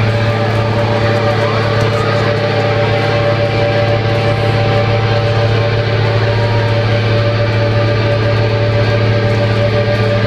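A loud amplified rock band holds a sustained, droning chord on guitars and bass at the close of the song, steady and without a beat.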